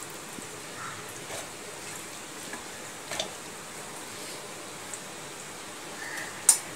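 Scattered soft taps and clicks as pieces of boiled, squeezed pointed gourd are put into a stainless steel mixer-grinder jar, over a steady hiss. A sharp click near the end is the loudest.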